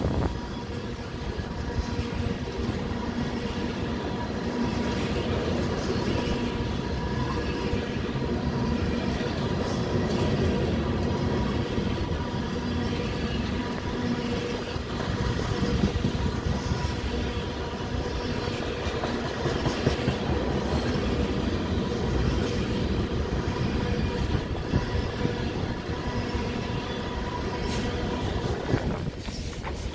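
Freight train tank cars rolling past, steel wheels clicking over the rail joints over a steady rumble, with a faint steady tone running above it. The sound dips briefly near the end.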